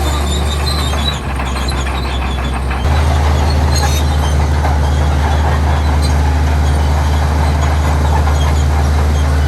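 Heavy diesel earthmoving machinery running with a steady low engine drone; about three seconds in the engine note shifts and grows louder.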